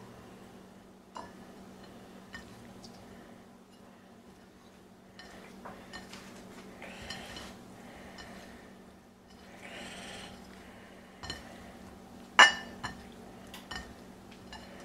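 Hands mixing raw shrimp with dry seasoning in a ceramic bowl: scattered light clinks of shrimp and fingers against the dish and soft squishing rustles, with one sharper, louder clink about twelve seconds in. A steady low hum sits underneath.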